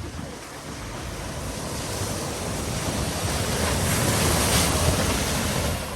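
Water rushing and splashing as a vehicle ploughs through deep floodwater. It builds steadily to its loudest about four to five seconds in, then drops off abruptly at the end.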